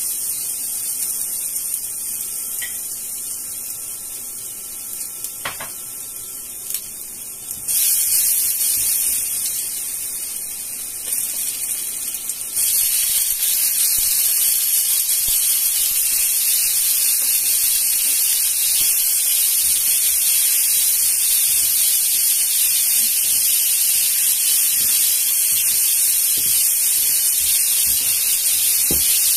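Garlic sizzling in hot oil in a wok, a steady frying hiss that starts suddenly. It steps louder about eight and again about thirteen seconds in as meat, scallions and onion go into the pan.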